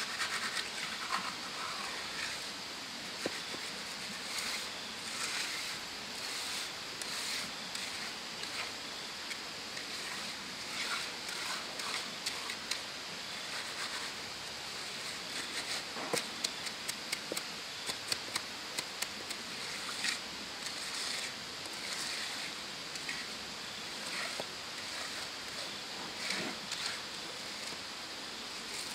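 Small steel trowel scraping and smoothing wet cement on stone steps, in short strokes, with a run of quick taps and scrapes in the middle. A steady high hiss of outdoor background lies under it throughout.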